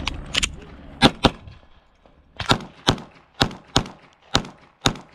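Glock 45 9mm pistol firing quickly, about ten sharp shots mostly in pairs. The loudest pair comes about a second in, followed by three more pairs.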